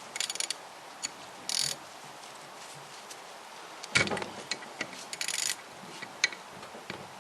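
Metal hand tools working on the cylinder head to undo the coolant temperature sensor: short bursts of rapid clicking, a sharp knock about four seconds in, and scattered single ticks.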